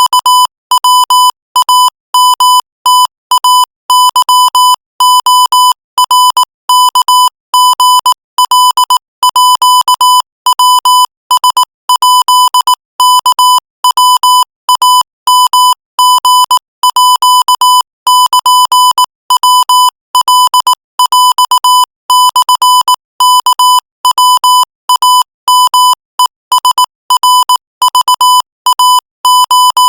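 Morse code: a single steady-pitched electronic beep keyed on and off in rapid dots and dashes at 22 words per minute.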